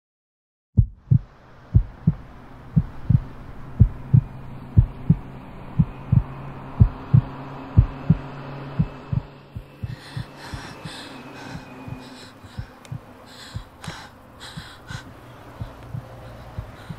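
Heartbeat sound effect: low double thumps about once a second over a steady low drone. About ten seconds in, the beats grow softer and sharper, brighter taps join them.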